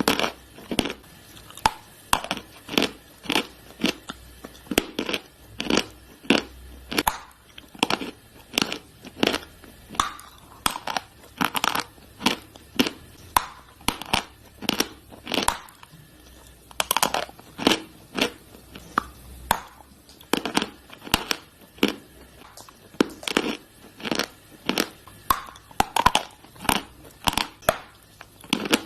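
Dry chalk sticks being chewed close to the microphone: a steady run of sharp, loud crunches, about one to two a second.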